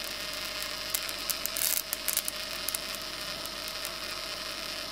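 High-voltage sparks from an ignition coil snapping across the gap between a phase-tester screwdriver's tip and a grounded wire: a run of sharp crackling snaps between about one and three seconds in, over a steady electrical buzz.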